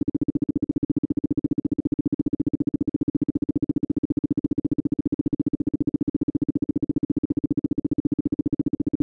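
Isochronic brainwave-entrainment tone: a single steady mid-low tone pulsing on and off rapidly and evenly, many times a second.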